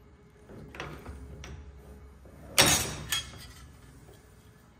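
Knockoff Beverly throatless bench shear cutting sheet metal by its hand lever. A few light clicks and creaks come first, then a loud sharp shearing crunch about two and a half seconds in and a shorter snap half a second later.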